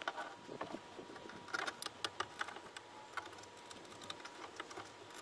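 Hands working on wiring at the amplifier rack, making irregular light clicks, taps and rustles.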